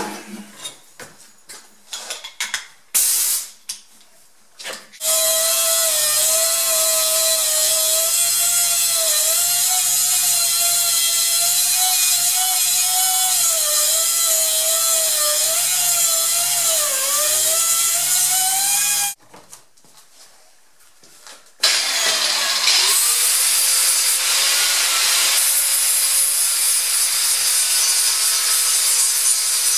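A power grinder with a cutting wheel cutting through a rusted steel exhaust hanger: a few handling clicks and knocks, then about five seconds in the tool runs under load for some fourteen seconds, its whine dipping and wavering as it bites, stops, and starts cutting again a couple of seconds later.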